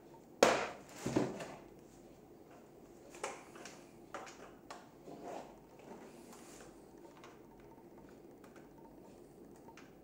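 Hard plastic knocks and rattles from two cordless-vacuum floor nozzles being picked up and handled. There are two loud clunks, about half a second and about a second in, then a few lighter knocks and clicks, and then only faint handling ticks.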